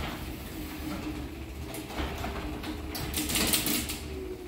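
Linear LDCO850 chain-drive garage door opener running quietly as it lowers a sectional garage door: a steady motor hum with the rattle of the chain, trolley and door rollers, and a brief louder clatter about three seconds in.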